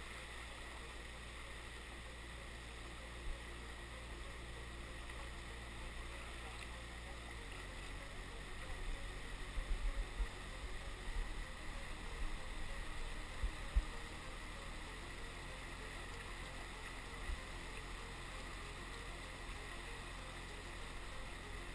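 Whitewater rapids of a river in flood rushing steadily, with a few short low thumps about halfway through.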